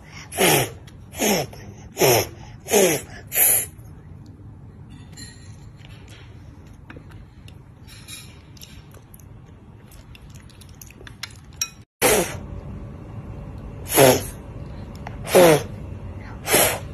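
A toddler blowing hard on a forkful of hot noodles in short, forceful puffs, each with a breathy hiss and a falling voiced tone. Five come in quick succession, then a quieter stretch with light clicks and clinks, then four more puffs.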